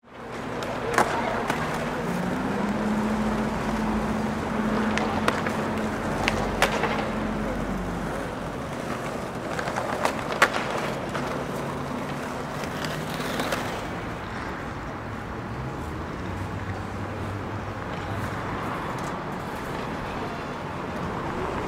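Skateboard on paving: several sharp clacks of the board snapping and landing over the first ten seconds or so, with the loudest about ten seconds in, over a steady background of street noise.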